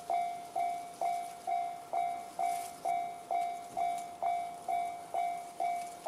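Electronic Japanese railway level-crossing alarm sounding the JR standard tone: an evenly repeated bell-like ding, a little over two a second, each note struck sharply and fading. It warns of an approaching train.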